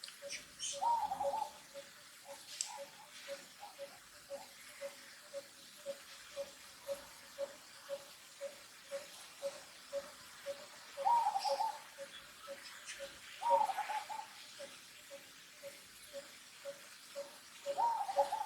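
Animal calls: a short single-note call repeated evenly about twice a second, with four louder, higher, wavering calls of about half a second each.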